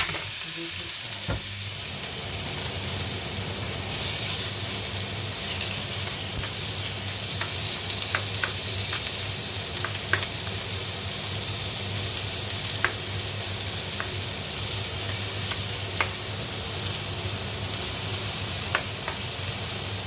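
Chicken breast pan-frying in plain cooking oil: a steady sizzle with a few sharp pops of spattering oil scattered through it, over a steady low hum.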